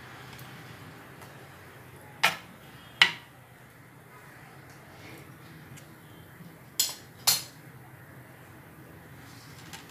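Metal kitchen utensils clinking against a cooking pan: four sharp clinks in two pairs, each pair about half a second apart, over a low steady hum.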